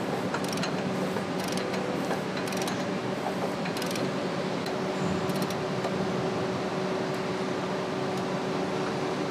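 Workshop noise on an engine assembly line: a steady mechanical hum with a few sharp metallic clicks in the first half.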